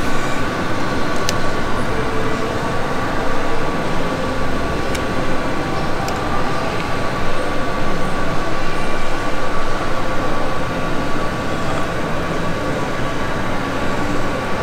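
Steady hiss and hum of background noise with a faint steady whine, broken by a few light clicks.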